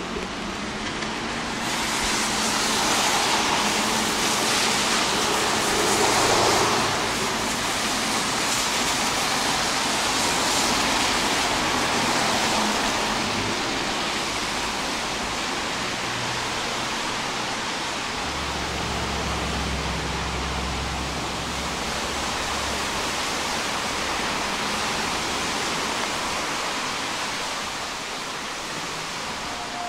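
Steady hiss of rain falling in a city, louder for the first ten seconds or so, with traffic noise underneath and a low rumble for a few seconds around the middle.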